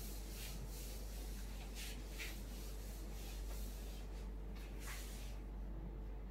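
Whiteboard duster wiping across a whiteboard in a series of short rubbing strokes, over a steady low hum.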